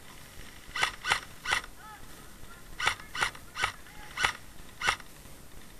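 Airsoft rifle firing single shots, each a sharp click: three in quick succession, then after a pause of about a second five more at a slightly slower pace.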